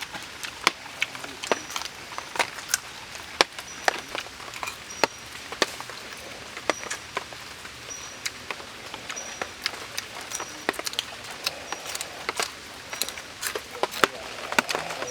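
Eating sounds: irregular sharp clicks and crunches, several a second. A short high chirp repeats in the background about every second.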